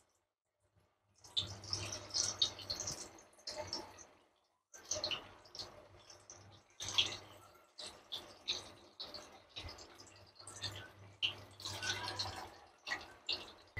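Paneer balls deep-frying in hot oil, sizzling and crackling in irregular spurts, with a faint low hum underneath. The sound starts about a second in and drops out briefly around four seconds in.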